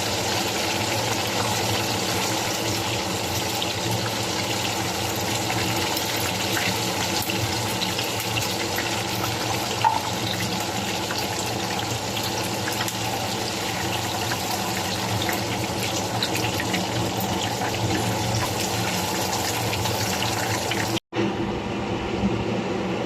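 Steady rush of running water, as from a tap, with a short click about ten seconds in. The sound breaks off briefly near the end.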